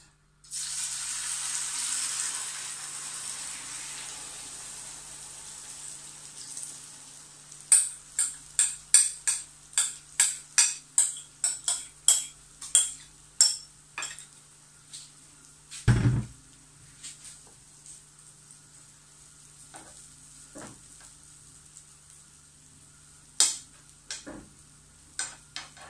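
Beaten egg and shredded vegetables poured into hot oil in a frying pan, setting off a loud sizzle that fades over several seconds. Then a utensil scrapes and taps in the pan about twice a second, with one low thump partway through and a few more taps near the end.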